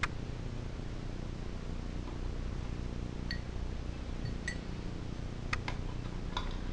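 A few light metallic clicks and clinks, one sharp click at the start and a scattered handful later, as the valve, spring and tools are handled on a bare Tecumseh small-engine block, over a steady low hum.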